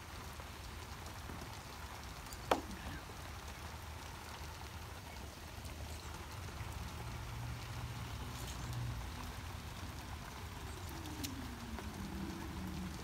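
Steady rain falling outdoors, an even patter, with a single sharp click about two and a half seconds in.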